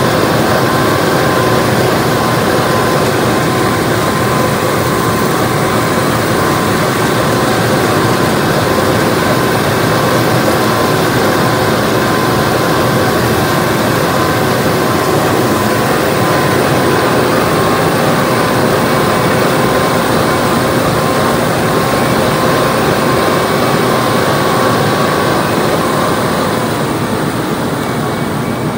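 John Deere 9970 spindle cotton picker running under load while harvesting: a loud, steady machine drone with a few constant whining tones above it. It eases slightly near the end.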